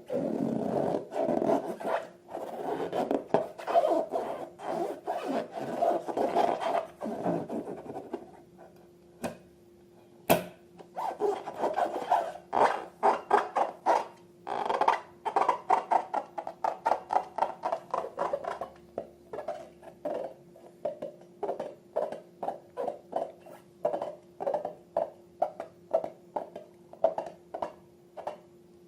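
Slime being squeezed and kneaded by hand: several seconds of continuous squishing, then after a short pause and a sharp click, a run of separate squishy presses, about two a second.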